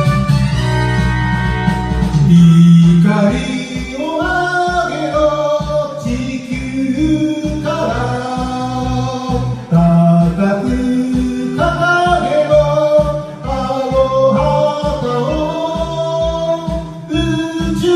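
Karaoke of an anime theme song: a backing track with a steady driving beat and a voice singing the melody over it.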